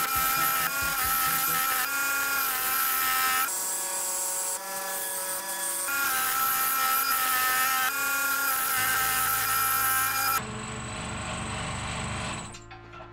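Electric scroll saw running and cutting through a thin wooden board: a loud, steady buzz with a high whine in it. About ten seconds in it stops and a quieter, lower hum takes over, and music starts near the end.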